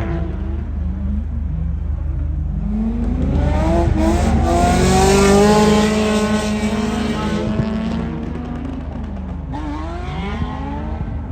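Car engine revving up and down repeatedly. It is loudest about five seconds in, where a hiss of tyre or exhaust noise rises with it, and the revs climb again near the end.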